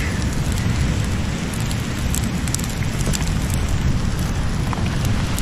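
Wind rumbling steadily on the microphone over an open wood fire crackling under a grill, with scattered sharp pops from the burning wood.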